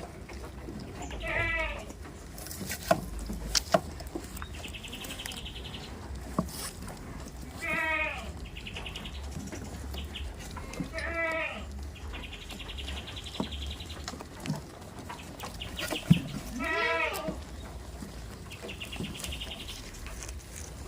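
Goats bleating: four short, wavering bleats spaced several seconds apart. Between the bleats comes a high, rapid chirring in spells of one to two seconds, with a few sharp clicks.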